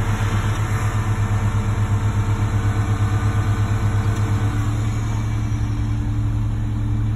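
Concrete mixer truck's diesel engine idling steadily, with an even pulsing that smooths out about two-thirds of the way through.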